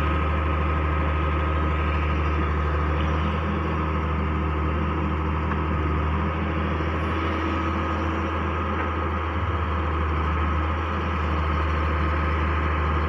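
Heavy diesel engine running steadily at a constant low hum, with no knocks or revving.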